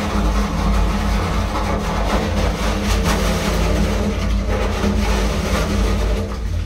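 Ship's machinery droning steadily in a steel bilge space, with a hissing, rushing noise over it.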